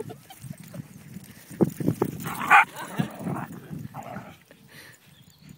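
A whippet barks during play: a few dull thumps, then one bark about halfway through and a shorter, softer one about a second and a half later.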